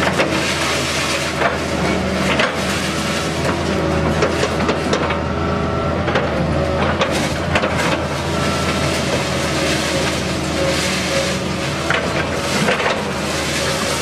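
Excavator-mounted hydraulic concrete pulverizer crushing reinforced-concrete rubble: irregular sharp cracks and crunches of breaking concrete over the steady running of the excavator's diesel engine.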